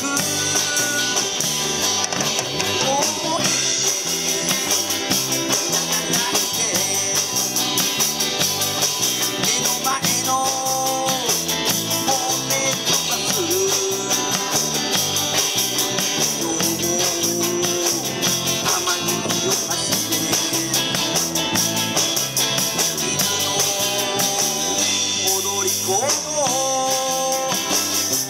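Live rock-and-roll band playing: two electric guitars, an electric bass and a drum kit keeping a steady beat.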